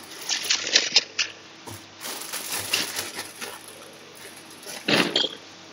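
Plastic zip-lock freezer bag of sliced carrots crinkling and rustling in the hands as it is squeezed and sealed, in short bursts with a louder one near the end.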